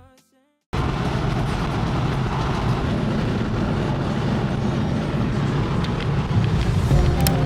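Steady road and engine noise inside a moving car, cutting in suddenly less than a second in.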